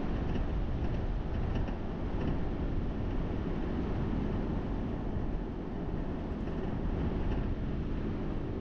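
Steady low rumbling noise with a faint hum under it, unchanging throughout.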